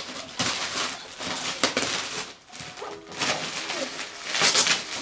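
Stiff holographic foil gift bag crinkling and rustling in bursts as hands dig into it. A short wordless voice sound comes about three seconds in.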